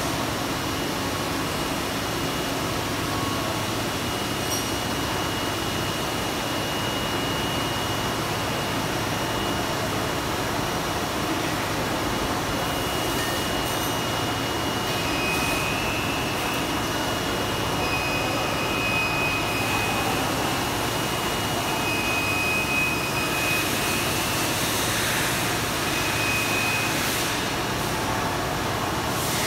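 Steady hum and hiss of running factory machinery, with a faint high whine that comes and goes.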